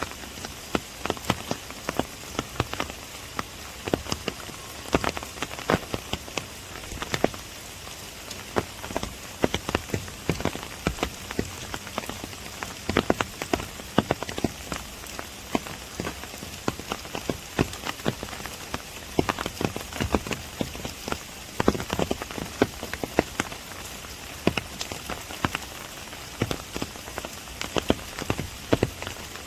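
Rain falling in a bamboo forest: a steady hiss with frequent, irregular loud drops tapping close by.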